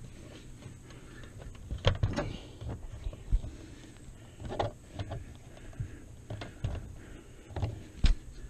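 Pop-up camper canvas being worked by hand into the metal channel along the door frame: fabric rubbing and scraping, with irregular knocks and thumps, the sharpest one near the end.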